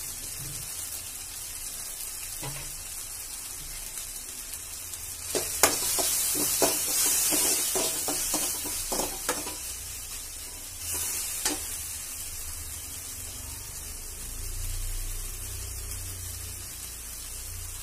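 Tomato and onion mixture sizzling gently in a metal kadai, with a steel spoon scraping and clinking against the pan as it is stirred, mostly between about five and ten seconds in.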